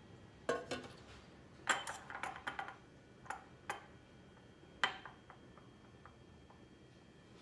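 Clinks and knocks of a stainless steel pour pitcher and glass candle jars with metal wick bars being set down and shifted on a tiled countertop. The sharp knocks come in an irregular series, bunched in the first three seconds, with a few sparser, fainter ones after.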